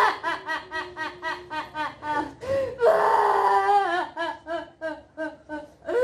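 A performer voicing a puppet character's theatrical laugh: a rapid run of high 'ha' syllables, a long drawn-out cry about three seconds in, then more quick laughing.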